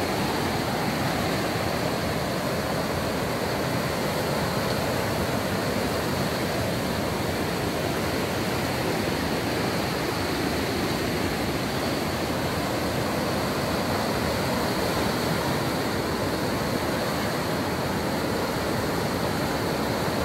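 River in flood, peat-brown water rushing fast through rocky rapids: a steady, loud, unbroken noise of white water.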